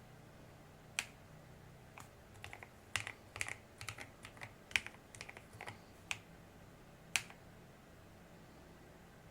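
Keys being pressed on an FL-Esports CMK75 mechanical keyboard: two single keystrokes a second apart, then a quick run of typing lasting about three seconds, then two more single keystrokes.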